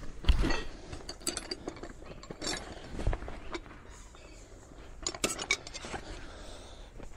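Metal spanners clinking and knocking together as tools are rummaged through, looking for one that fits. The clinks come irregularly, the loudest just after the start and a quick cluster about five seconds in.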